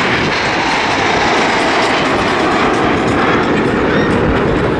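Jet engine noise from a formation of nine BAE Hawk T1 jets flying overhead: a loud, steady rushing sound.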